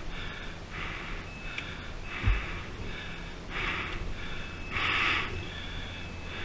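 A person breathing hard in loud gasps and snorts, roughly one breath a second, from the effort of moving a motorcycle. A dull thump comes about two seconds in.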